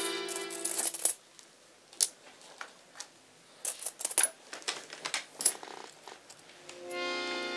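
Held chords of music break off about a second in, leaving scattered sharp clicks and clinks at irregular intervals. A held chord swells back in near the end.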